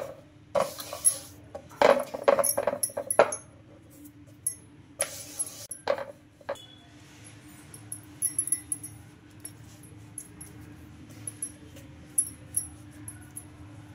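Wooden rolling pin knocking and rolling over spinach paratha dough on a wooden board, with several clusters of knocks and rubbing strokes in the first six seconds. After that come scattered small high clinks over a faint steady hum.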